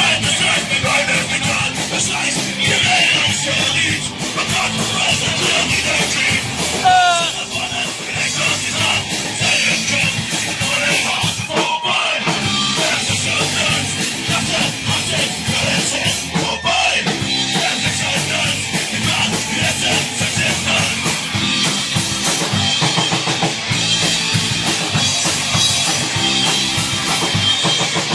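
Live rock band playing loud, drums and electric guitar driving a steady beat without a break.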